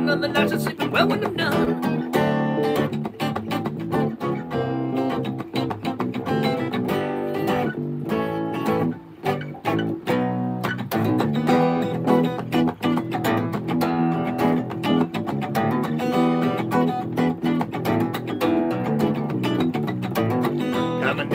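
An acoustic guitar strummed together with a bass guitar, playing a song.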